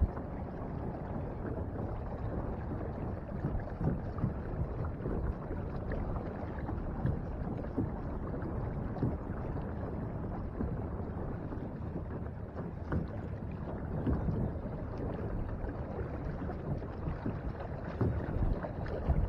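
Choppy lake water lapping and sloshing against the hull of a small Pelican Bass Raider 10e fishing boat under way, with wind noise on the microphone. The sound is a steady, even wash with small irregular splashes.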